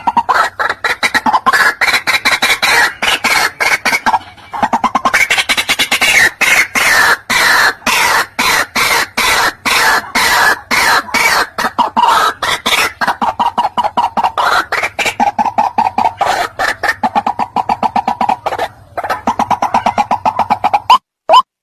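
White-breasted waterhen calling: a long run of harsh, rapidly repeated notes, several a second, that breaks off briefly about four seconds in and again near the end. A low steady hum lies underneath.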